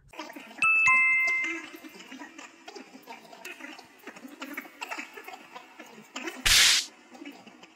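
Video-edit sound effects marking a cut: a bright chime ding about half a second in, held for about a second, then a faint muffled voice and a short loud burst of noise near the end.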